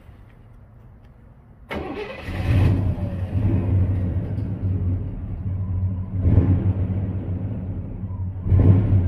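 Car engine, most likely the box Chevy's, catches and starts about two seconds in, then idles with a low rumble and is revved briefly twice more.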